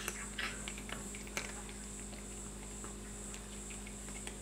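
Cat crunching dry kibble: irregular crisp crunches, thicker in the first second and a half, then sparser.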